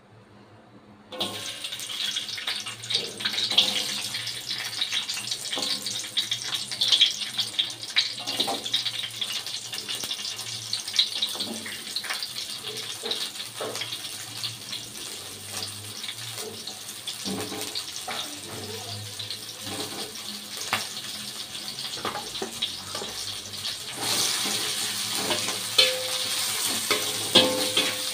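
Sliced shallots, garlic and chillies sizzling in hot oil in a wok, with many small pops. The sizzle starts suddenly about a second in as they go into the oil. Near the end it gets louder as a spatula stirs them.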